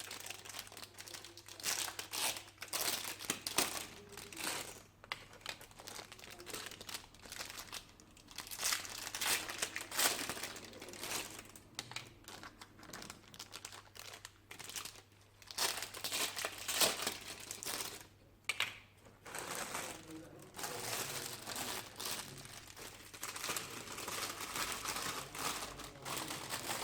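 Plastic packaging crinkling as it is handled and unwrapped, in irregular bursts.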